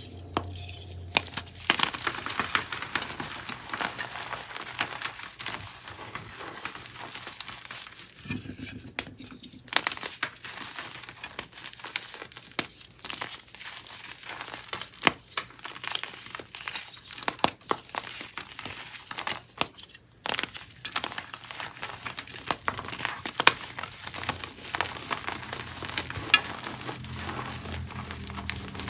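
Reformed gym chalk blocks crushed and crumbled between the fingers: dense crunching and crackling with frequent sharp snaps, broken by a couple of brief lulls.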